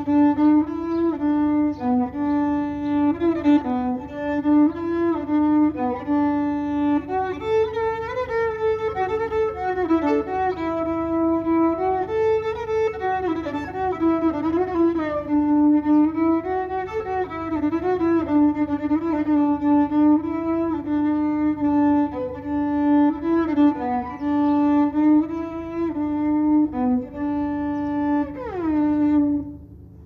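Solo violin playing a melody of held notes, mostly in its low register. It ends with a downward slide about 28 seconds in.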